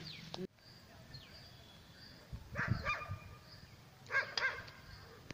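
A dog barking in two short bouts of a few barks each, the first about two and a half seconds in and the second about four seconds in.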